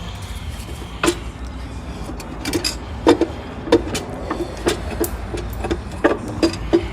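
Irregular light metallic clinks and knocks, about a dozen, coming closer together in the second half, as the timing chain cover of a Subaru 3.0L flat-six is wiggled and pried free with its bolts still in it.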